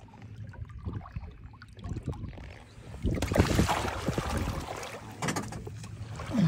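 Water splashing against a boat's side as a hooked sturgeon thrashes at the surface and is grabbed, with a heavier burst of splashing about three seconds in.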